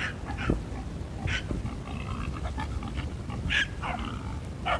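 Farm dogs barking and yipping in short, scattered calls as they work a boar.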